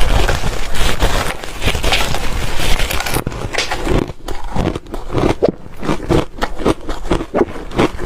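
Ice being bitten and chewed: a dense, irregular run of crunches and cracks.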